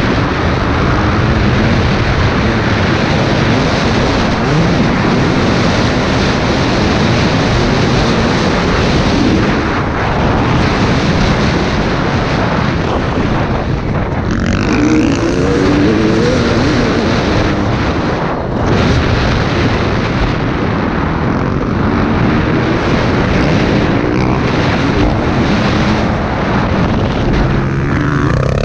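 KTM 250 EXC TPI single-cylinder two-stroke engine revving up and down under hard riding, mixed with heavy wind rush on a helmet-mounted microphone. The engine note dips briefly about two-thirds of the way through.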